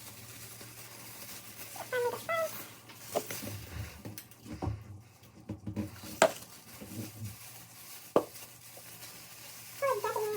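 Two short pitched calls from a domestic animal, one about two seconds in and one near the end, with scattered clicks and knocks in between.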